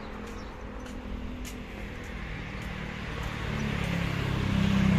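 Street traffic, with a motor vehicle approaching whose engine gets steadily louder over the second half.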